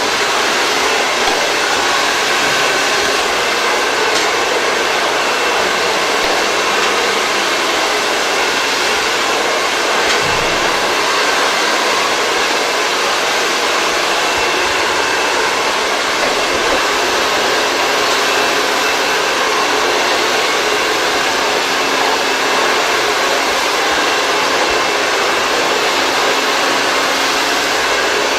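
Handheld hair dryer running steadily during a blow-dry, a loud, even rush of air with no breaks.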